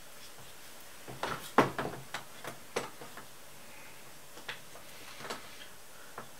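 Light scattered clicks and knocks of metal parts as a small IME watchmaker's lathe is handled and set in place on its stand, the loudest knock about one and a half seconds in.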